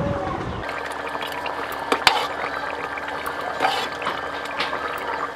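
Chicken curry being ladled out of the pot and poured into a serving dish, with a few sharp clinks of the ladle against the vessel, two close together about two seconds in.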